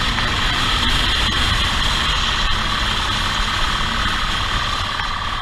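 Motorcycle engine running steadily while riding at speed, with heavy wind rush on the microphone.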